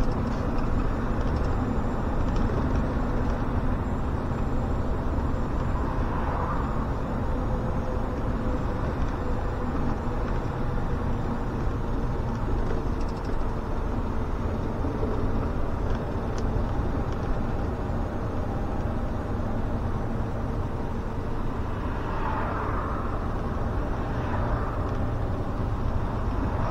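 SOR CN10.5 bus driving, its engine running steadily under road and tyre noise. A brief higher whine swells up about six seconds in and twice more near the end.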